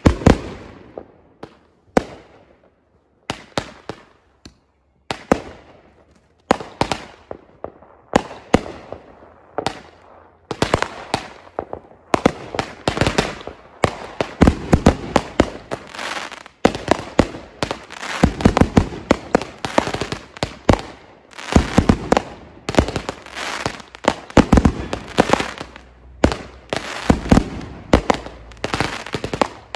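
Consumer aerial fireworks going off: sharp bangs, each with a fading echo, a second or two apart at first. From about twelve seconds in they become a rapid barrage of reports.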